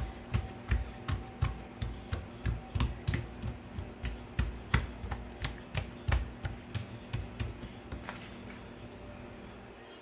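Hands patting and pressing soft pastry dough on a work surface: a quick series of soft knocks, about two to three a second, that thins out near the end.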